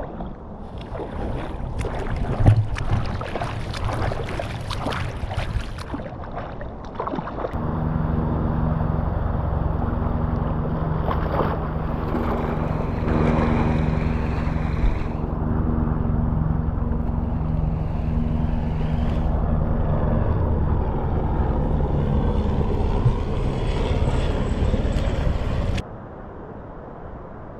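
River water slapping and splashing against a camera held at the surface. From about seven seconds in, a steady low rumble with a constant hum runs until it cuts off abruptly near the end.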